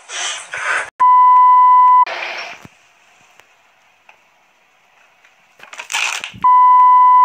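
An electronic bleep: a loud, steady pure tone lasting about a second, sounding twice, about a second in and again near the end. Short bursts of noise fall between the two bleeps.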